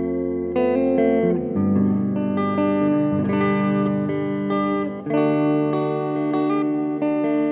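Epiphone Les Paul Classic Worn electric guitar played through a clean tone: chords picked and left to ring, changing every second or two.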